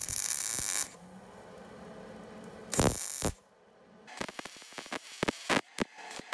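MIG welder arc crackling while plug-welding through holes in sheet steel: a burst of welding in the first second, another short burst about three seconds in, then a string of brief crackles near the end as the holes are filled to join structural rocker panel.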